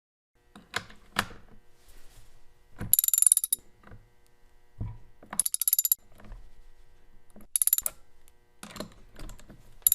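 Socket wrench ratchet clicking in four short bursts of rapid clicks as the handle is swung back, tightening the fasteners on a chainsaw's bar and chain guard. Between the bursts come a few dull knocks of the socket and wrench being handled.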